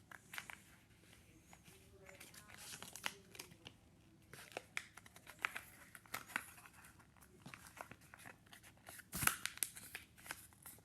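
A sheet of printer paper being handled and folded: scattered crinkles, rustles and the crackle of creases being pressed down, with a louder burst of paper noise about nine seconds in.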